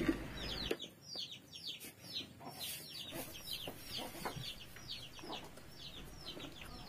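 Birds chirping in the background: a steady string of short, high chirps that fall in pitch, about three a second.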